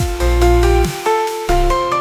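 Background music: electronic instrumental with held synthesizer notes changing every quarter to half second over a deep pulsing bass.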